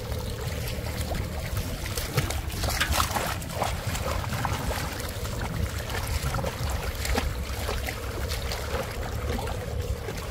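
Shallow water splashing and sloshing as someone wades through a flooded field, with many small irregular splashes over a steady low rumble.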